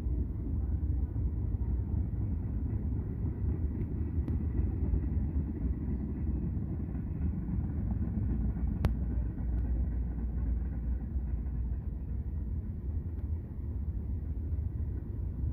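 Freight train's tank cars and covered hoppers rolling past at a distance: a steady low rumble of steel wheels on rail. A single sharp click sounds about nine seconds in.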